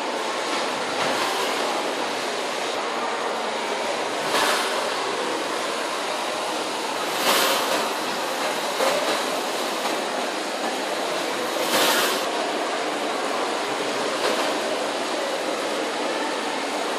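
The Smethwick Engine, a Boulton & Watt steam beam engine, running in steam. It makes a steady hiss, with brief louder gushes of steam every few seconds.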